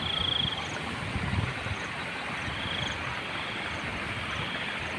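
Steady rushing of floodwater, with insects calling in short high trills that repeat every second or so.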